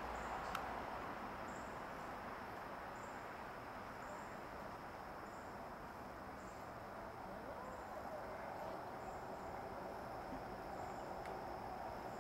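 Faint insect chorus: short high chirps repeating about once a second over a steady high trill, with a low hiss of background noise.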